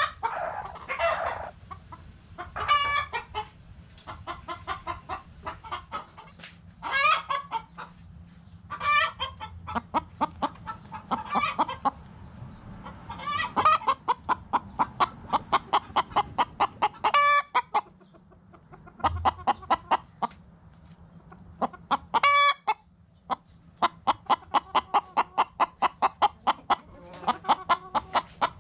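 Backyard chickens clucking: runs of quick, repeated clucks, broken every few seconds by louder, longer calls.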